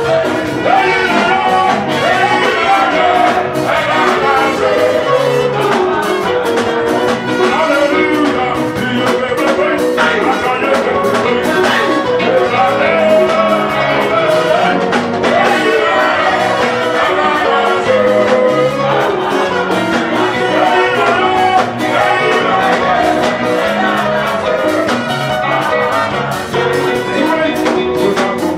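Live Pentecostal praise music: a band with keyboard playing an upbeat steady beat under singing.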